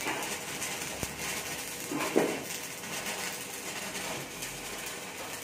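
Stick (shielded metal arc) welding arc crackling and sizzling steadily as an electrode burns along a horizontal (2G) groove joint on steel plate.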